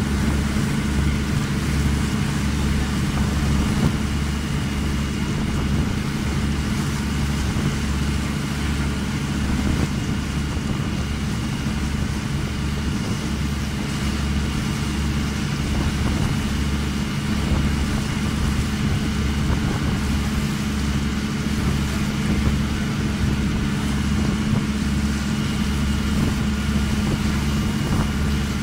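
A boat's engine running steadily, a constant low drone that does not change.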